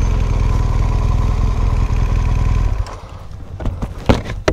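BMW R 1200 GS boxer-twin engine running steadily at low speed on a rough track. The engine sound stops abruptly about three seconds in, leaving a couple of sharp knocks near the end.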